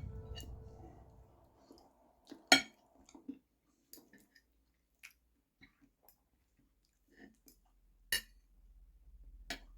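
Background music fading out, then scattered clinks of cutlery on a plate as the cooked salmon and potatoes are eaten, three of them sharp and loud, with faint chewing between.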